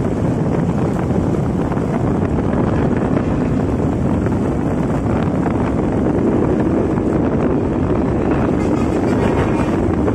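Steady road-speed noise of a Luragung intercity bus's diesel engine and its loud 'ngorok' (snoring, growling) exhaust, heard while following it, with wind buffeting the microphone throughout.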